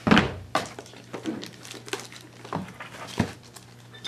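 Paper and cardboard packaging being handled: rustling sheets and a small cardboard box picked up and turned over, with a few light taps and knocks.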